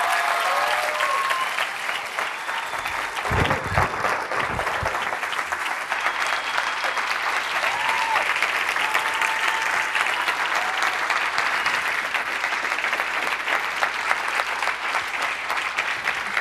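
Audience applauding steadily, with scattered whoops and a few low thumps about three to five seconds in.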